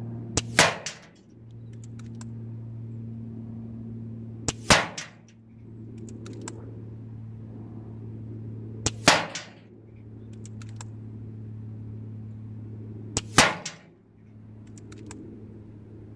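Four shots from an Air Arms S510 SL Carbine .22 pre-charged pneumatic air rifle, about four seconds apart, each a sharp crack with a light click just before it. Fainter clicks between the shots are the rifle being cycled for the next pellet, over a steady low hum.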